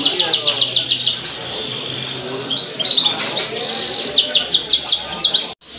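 Canary singing: fast trills of repeated high, downward-sweeping notes, about ten a second, in a burst at the start and another about four seconds in, with softer twittering between.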